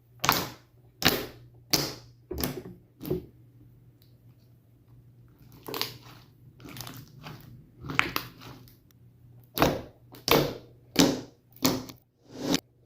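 Slime being squeezed and poked, played in reverse: a series of short sticky squelches, about one every half-second to second, with a lull partway through. A faint steady low hum runs underneath.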